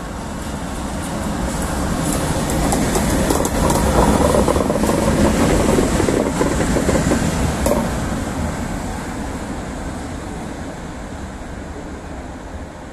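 Pair of SNCB class 13 electric locomotives running light past, coupled together: a rumble that grows louder to a peak mid-way, then fades as they move off, with sharp clicks from the wheels on the track as they go by.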